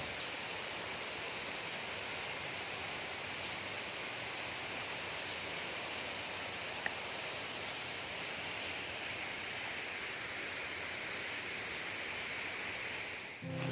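Tropical forest ambience: a steady hiss with a high-pitched insect call pulsing evenly throughout, and one small click about seven seconds in.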